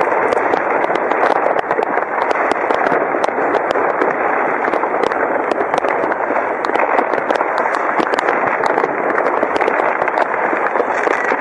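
Many fireworks and firecrackers going off at once across a city at New Year's Eve: a dense, continuous wash of distant bangs and crackling, with frequent sharp cracks on top.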